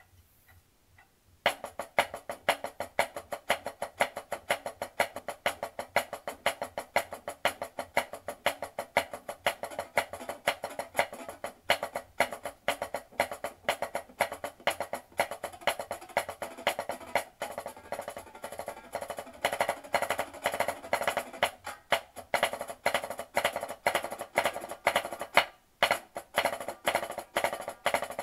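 Drumsticks playing a fast marching-snare part on a practice pad: dense strokes with rolls and accents. The playing starts about a second and a half in and breaks off briefly a few times.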